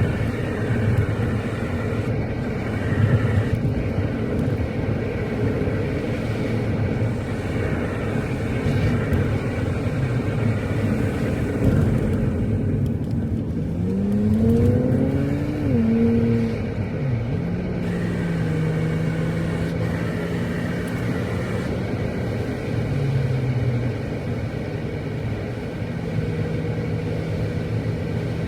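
Motor vehicle driving, a steady low engine and road rumble. About halfway through the engine note rises as it accelerates, then holds at a steady pitch.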